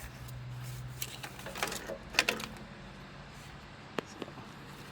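Scattered light metallic clicks and clinks, as of hand tools and parts being handled during work on a truck's starter motor. A faint low hum sits under them early on.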